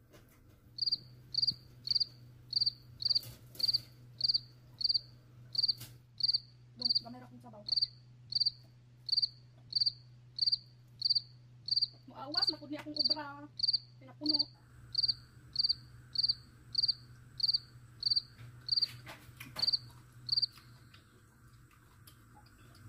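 A cricket chirping steadily in short high chirps, about two a second, over a low steady hum; the chirping stops a couple of seconds before the end.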